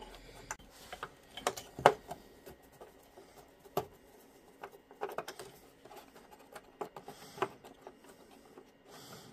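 Scattered light clicks and taps of a screwdriver and small parts against a cordless vacuum's plastic housing as a small circuit board is fixed in place with a screw. The sharpest tap comes about two seconds in.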